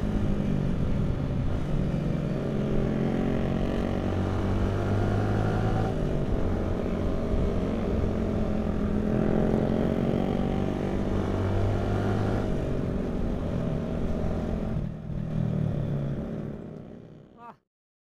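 Sport motorcycle engine running under way, recorded from the bike itself, its pitch holding and then dropping with throttle and gear changes about a third and two-thirds of the way in. The sound fades and cuts off suddenly near the end.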